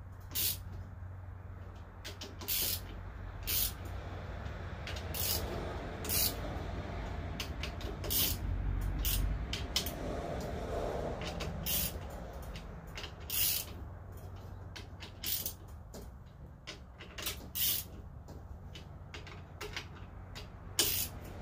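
Ratchet wrench clicking in short bursts, about one a second, as bolts are drawn down, over a low steady hum.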